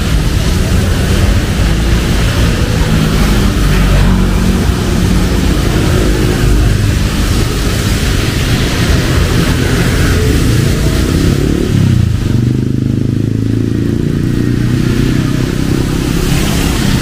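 Busy city road traffic in the rain: motorcycle and car engines running close by over a steady hiss of rain. About two-thirds of the way through, one engine's note rises and falls.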